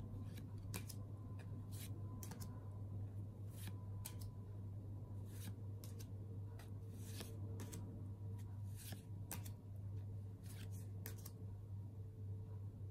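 A deck of oracle cards being flipped through by hand, each card slid off the deck with a soft irregular click, over a steady low hum.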